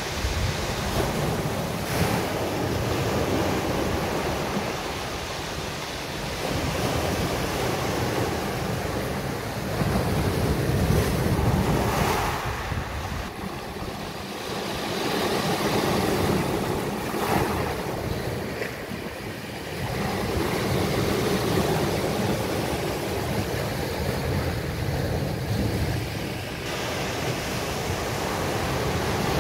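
Sea waves breaking and washing up the beach, the surf swelling and easing every several seconds, with wind rumbling on the phone's microphone.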